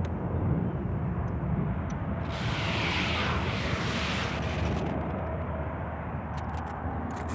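Steady low rumble of diesel road traffic. About two seconds in, a rushing noise swells and fades over roughly two and a half seconds, as a vehicle passes on the highway.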